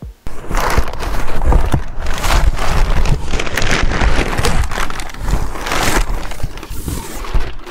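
Large cardboard box and the plastic packaging inside it being rustled and crinkled: loud, irregular crackling and scraping.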